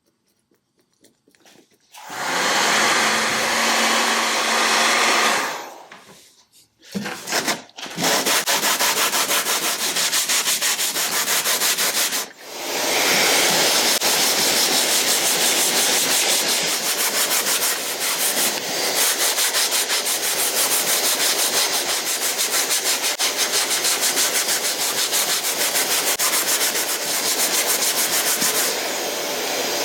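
Sanding on the fiberglass-and-epoxy repair of a wooden kayak: a steady, even rasping that starts about two seconds in and pauses briefly twice.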